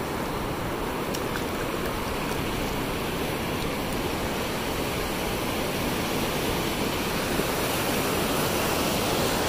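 Sea surf rushing steadily, swelling a little near the end.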